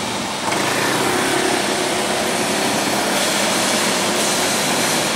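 Street traffic on cobbles with a motor scooter's engine running as it passes, over a steady wash of traffic noise that rises about half a second in.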